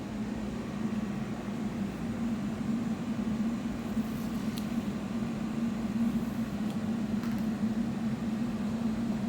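Steady low mechanical hum with no breaks.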